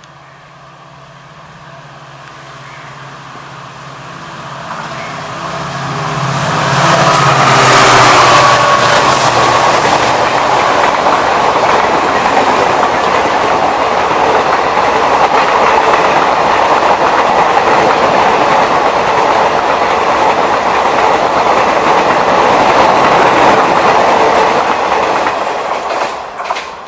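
WDP-4D diesel-electric locomotive, with its 16-cylinder two-stroke EMD 710 engine, approaching at speed and getting steadily louder, loudest as it passes about eight seconds in. The coaches of the express then rattle past with a continuous clickety-clack of wheels over rail joints, which drops off suddenly as the last coach goes by near the end.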